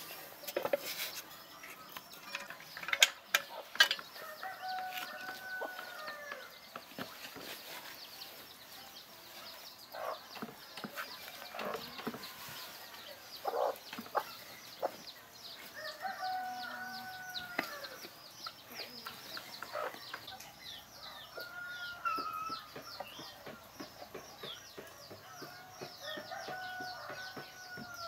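A rooster crowing four times, each crow a long call of a second or two, with a few sharp metallic clinks of hand tools on a small petrol engine in between.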